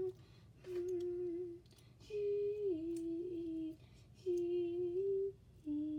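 A voice humming a wordless tune in four short phrases, each held about a second with a step down or up in pitch, with a few faint clicks in between from the plastic action figure being posed.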